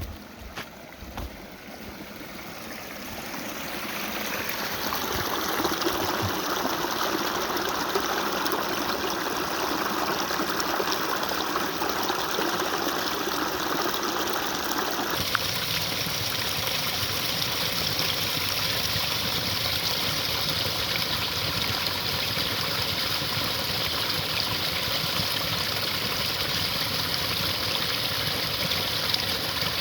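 Running water of a stream, a steady rushing that grows louder over the first few seconds and changes tone suddenly about halfway through.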